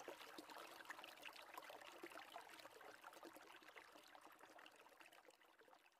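Faint running, trickling water made up of dense tiny crackles, fading out near the end.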